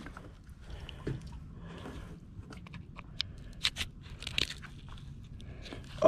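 Faint scattered clicks and scrapes from handling a Mossy Oak replaceable-blade knife, the blade being worked out of and into its handle, the clicks clustering in the middle of the stretch.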